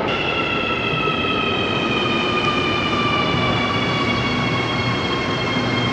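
Santiago Metro Line 6 train pulling into the station and slowing, a steady rumble with several whining tones from its electric traction motors that slowly fall in pitch as it brakes.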